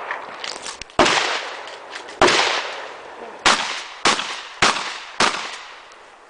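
Mossberg 590 pump-action shotgun firing six shots, each followed by a short decaying tail. The first three come about a second and a quarter apart, and the last three faster, about half a second apart.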